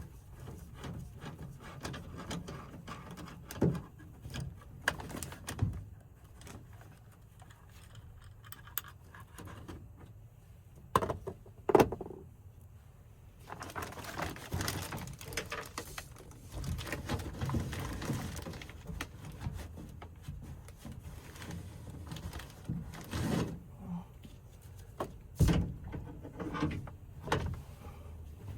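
Hand-work inside a van's sliding door while fishing out a dropped socket extension. Scattered clicks, clinks and scraping of metal tools against plastic and sheet metal, with two sharp knocks about eleven seconds in and a longer stretch of rummaging scrapes after them.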